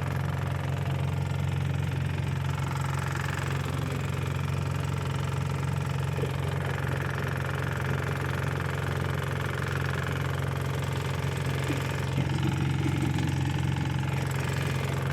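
A small engine running steadily with an even, unchanging hum.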